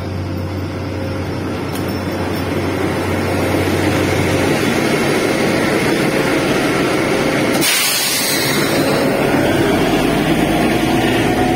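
Kalka–Shimla Railway narrow-gauge diesel locomotive running past close by with its coaches, the engine's hum growing louder as it draws alongside. About eight seconds in comes a sudden hiss of air lasting about a second.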